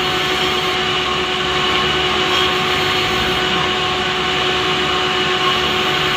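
Chainsaw engine running steadily at high revs while ripping a large Pulai log lengthwise.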